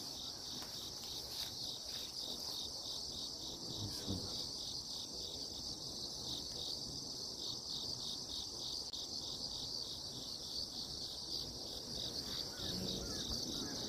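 Insects chirping in the undergrowth: a steady, high, evenly pulsing chirp that holds without a break.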